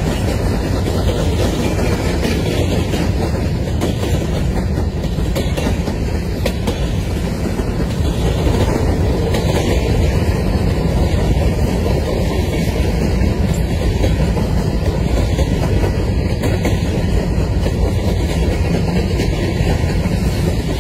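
Covered hopper cars of a freight train rolling past at steady speed: a continuous, even rumble of steel wheels on the rails.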